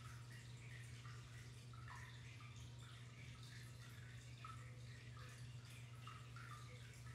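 Faint aquarium water trickling and dripping in many small scattered drops, over a steady low hum.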